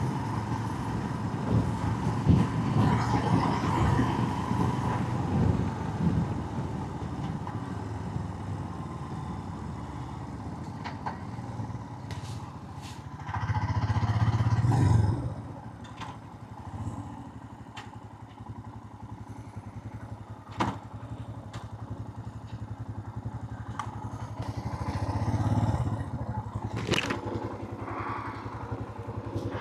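Motorcycle engine running with road and wind noise, heard through a helmet-mounted microphone. It swells louder about halfway through and again briefly near the end, with a few sharp clicks and scrapes in the second half.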